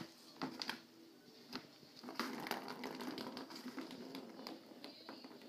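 Cat pawing and scratching at a Turbo Scratcher toy's corrugated cardboard pad and plastic rim: irregular scratches, rustles and light knocks.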